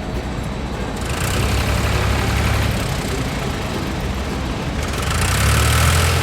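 Heavy vehicle engine sound effect, a low rumble with a noisy rattle that grows louder about a second in and again near the end.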